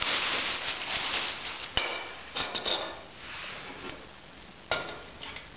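Plastic carrier bag crinkling as a small metal hobo stove is unwrapped, then metal camping cookware knocking and clinking: a sharp knock just under two seconds in, a few light ringing clinks, and another knock near the end.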